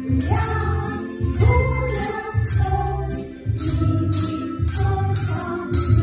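A children's ensemble of coloured hand bells ringing a tune, the bell notes struck in time over a recorded backing track with a steady beat of about two pulses a second.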